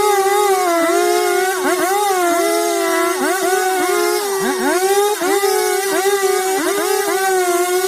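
Chainsaw engine running at high revs, a steady high note broken by many quick dips and swoops in pitch.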